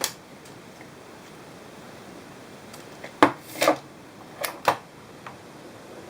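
A sharp click, then about three seconds in a quick run of clicks and knocks with a brief scrape, like hard parts being handled, over a steady hiss.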